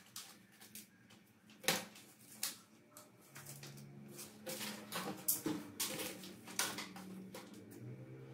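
Clear plastic bag crinkling and rustling as it is handled and cut with scissors, with irregular sharp snips and crackles, the loudest about two seconds in and again in the second half.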